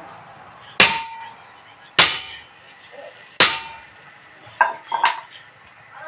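Hammer blows on a tractor trolley tyre mounted on its steel wheel rim: three heavy strikes with a short metallic ring after each, then two lighter knocks near the end. This is the hammering used to break the tyre's bead loose from the rim.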